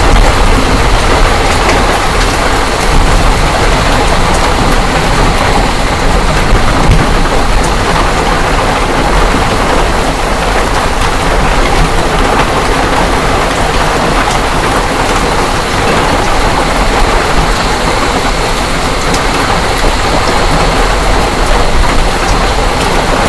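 Heavy hail and rain pelting down hard: a loud, steady downpour hiss thick with small hits.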